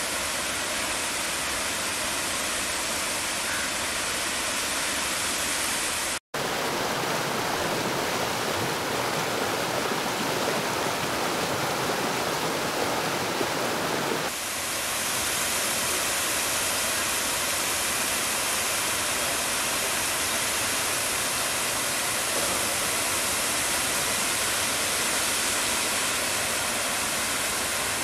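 Water rushing steadily over low, wide waterfall cascades, a constant even noise of falling and churning water. It drops out for an instant about six seconds in, and the sound changes a little at cuts around six and fourteen seconds.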